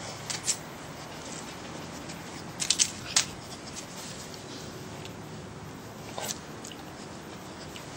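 Dog working a rubber food-puzzle toy, mouthing and nosing it about. Scattered short clicks and knocks from teeth and toy come twice just after the start, in a quick cluster about three seconds in, and again near the end.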